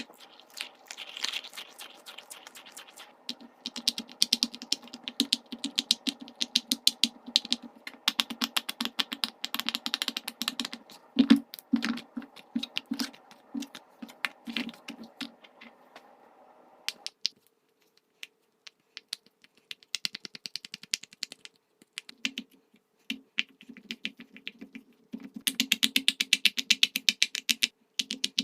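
Bubbles of a large silicone pop-it fidget toy being pressed in quick succession, giving rapid runs of sharp little pops. The runs break off for a moment about two-thirds of the way in, and the loudest run comes near the end.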